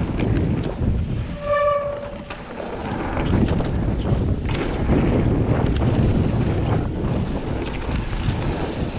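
Commencal mountain bike riding fast down a rocky gravel trail: steady wind buffeting on the microphone, with tyre rumble and rattling of the bike over stones. About a second and a half in there is a brief steady high squeal.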